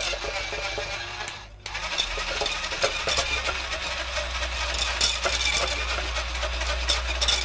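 Small battery-operated handheld whisk running in a stainless steel saucepan of chocolate glaze, with a low motor hum and the whisk wires clicking against the pan. It cuts out briefly about a second and a half in, then runs again.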